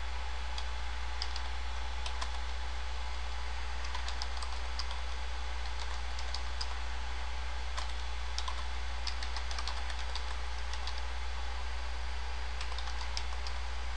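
Typing on a computer keyboard: irregular light key clicks, a few at a time with short pauses, over a steady low hum.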